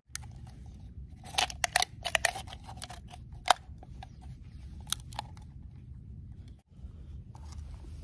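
Sharp clicks and taps of a thin aluminium drink-can stove being handled and set down on a wooden log, in quick clusters in the first two-thirds. A low steady rumble runs underneath.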